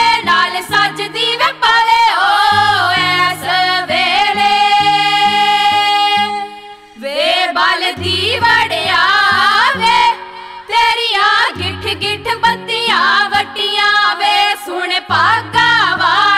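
Background music: a Punjabi song with a voice singing over a stepping bass line. There is a long held note about four seconds in and a brief drop near seven seconds before the song resumes.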